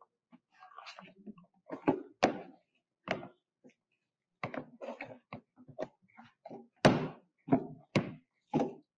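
Spoon beating thick brigadeiro dough in a plastic tub, with irregular knocks and thuds as the spoon hits the tub; the loudest comes about seven seconds in. The dough is stiff, being worked to rolling consistency.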